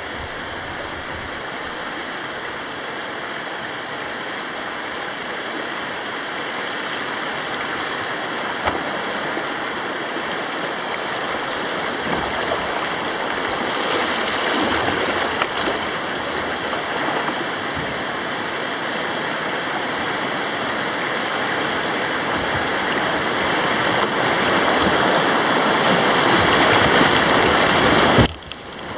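River rapids: a steady rush of white water that grows gradually louder, then drops out briefly near the end.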